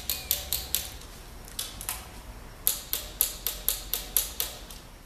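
Ratchet of a torque wrench clicking in quick runs, about four clicks a second with a short pause about a second in, as the roller-rocker adjusting nuts are tightened and their torque checked.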